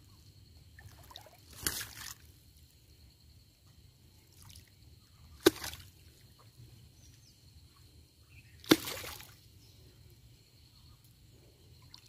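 Three short, sharp splashes of river water, a few seconds apart, as a large fish thrashes in a cast net held in the water.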